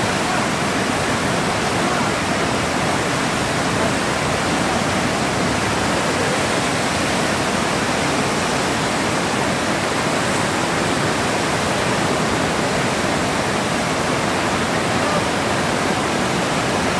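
Muddy floodwater of a swollen river rushing past in a steady, unbroken torrent.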